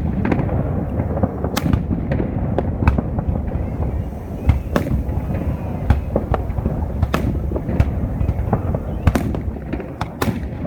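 Aerial fireworks going off in a display: sharp cracks every second or two over a continuous low rumble of booms.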